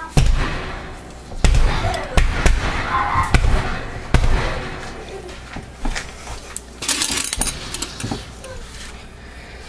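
A wooden loaf mold full of fresh cold-process soap batter banged down repeatedly on the counter: a series of heavy thumps over the first four seconds or so, then lighter knocks. This settles the batter and knocks out trapped air bubbles.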